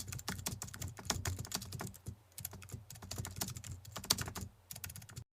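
Rapid, irregular clicking like keys being typed on a keyboard, over a faint low hum; it stops abruptly near the end.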